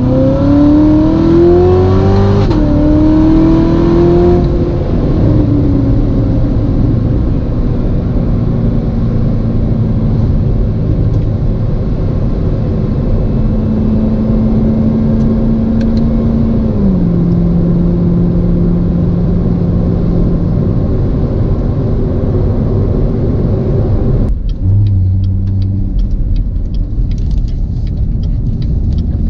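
Supercharged V8 of a 2019 Corvette ZR1 accelerating, its pitch rising, then dropping at a gear change about two and a half seconds in. It then settles into steady cruising, with a step down in engine pitch a little past halfway. Near the end the sound changes abruptly and a run of fast ticks comes in.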